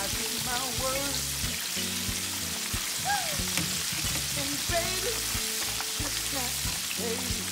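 Catfish deep-frying in hot oil in a wire fry basket, a steady sizzling and bubbling, with music playing in the background.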